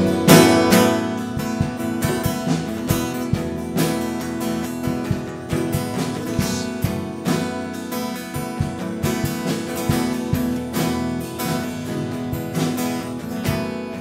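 Acoustic guitar strumming a steady rhythm: the instrumental introduction to a worship song.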